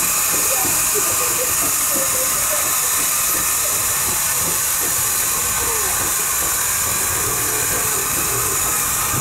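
Norfolk and Western #475, a 4-8-0 steam locomotive, working under way: a steady, loud hiss of steam with low running noise underneath.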